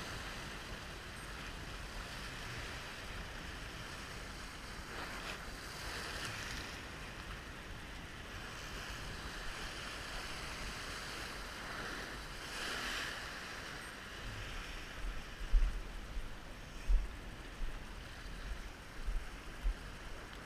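Ocean surf washing over a rock shelf, a steady hiss of whitewash that swells twice, about five and twelve seconds in. Near the end, several short low thumps of wind on the microphone.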